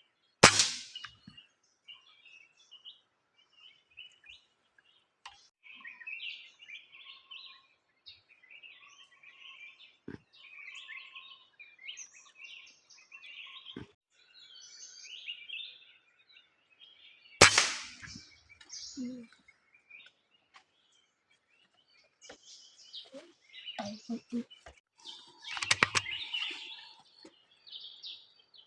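Two sharp cracks of a .22 (5.5 mm) PCP air rifle firing, about seventeen seconds apart, with small birds chirping throughout. A spell of rustling and clattering comes near the end.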